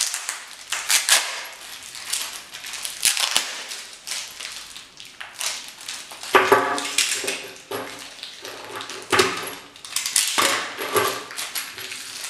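Tape and plastic wrapping being peeled and torn off a small, tightly wrapped package by hand. The wrapping crinkles and rustles throughout, with a few longer rasping tears about six seconds in and again a few seconds later.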